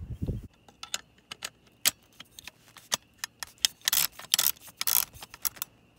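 The fading end of a suppressed rifle shot, then a run of sharp, irregular metallic clicks as an RMS2 HOPAII suppressor is twisted and ratcheted onto a KeyMo muzzle mount on an AR-15.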